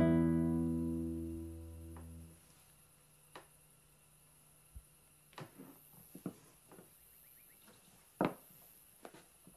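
A guitar chord rings and dies away over the first two seconds or so. Then it is quiet except for a few short, faint clicks or chirps scattered through the rest.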